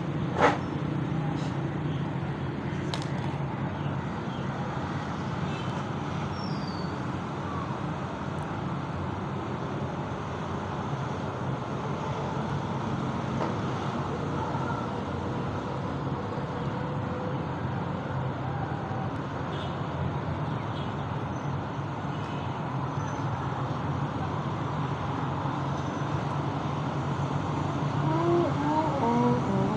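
Steady background hum of road traffic, with a sharp click about half a second in.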